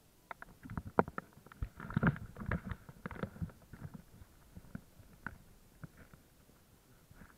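Muffled water sloshing and gurgling against a waterproof camera held at the sea surface, with irregular knocks and clicks. It is busiest in the first half and thins out after about four seconds.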